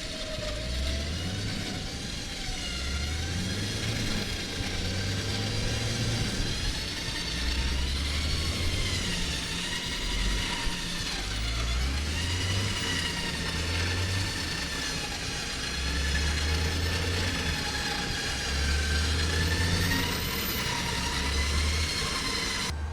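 Off-road SUV engine running under load and revving unevenly while the vehicle is stuck in a wet bog, with a whine that rises and falls over a low, uneven rumble.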